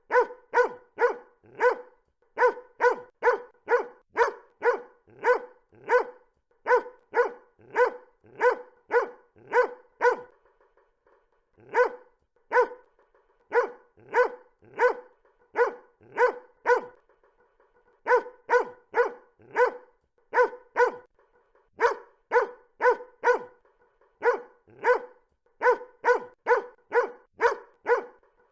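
A dog barking loudly over and over, about three sharp barks a second, in runs broken by a couple of short pauses.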